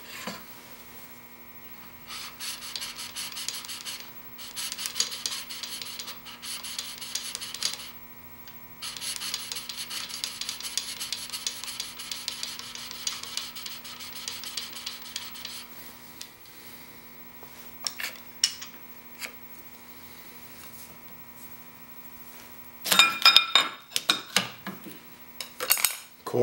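Chisel in a General sharpening jig rubbed back and forth on a fine DMT diamond sharpening plate: a steady scraping hiss for about six seconds, a short break, then about seven seconds more. Near the end, a quick run of loud metallic clatters as the jig is lifted and handled.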